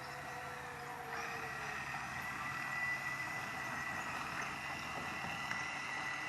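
Electric motor and hydraulic pump of a Kabolite radio-controlled hydraulic construction model running with a steady whine, growing louder about a second in as a hydraulic function comes under load.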